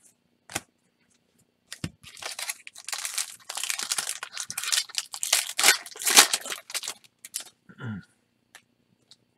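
Foil wrapper of a 2018 Topps Chrome baseball card pack torn open and crinkled by hand: a crackling, rustling tear lasting about five seconds, after a couple of sharp clicks.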